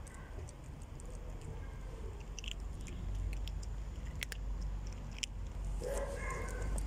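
Cat crunching dry kibble: scattered sharp crunches as it chews, over a low rumble. Near the end comes a brief pitched call.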